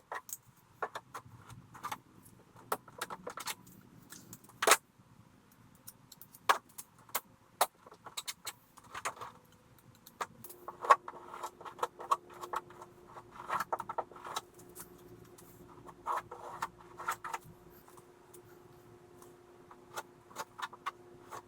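Irregular clicks, knocks and light metallic jangling of tools and materials being handled during hands-on work, thickest in the second half. A faint steady hum starts about halfway through.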